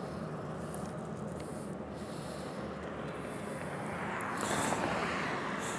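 Steady rush of wind and road noise from an electric motorcycle on the move, swelling for a moment about four seconds in.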